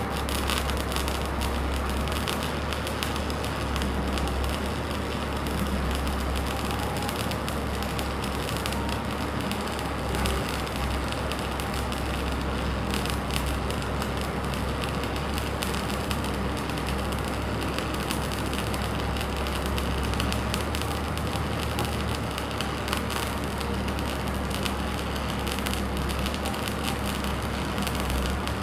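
Stick-welding arc crackling and sizzling steadily as a vertical bead is run with a coated electrode rod, struck right at the start. A low steady hum runs beneath it.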